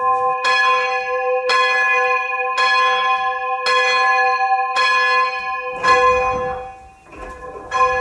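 A single church bell being rung up. Its clapper strikes about once a second, every strike at the same pitch, and each one rings on into the next. The ringing dies down about seven seconds in before one more strike.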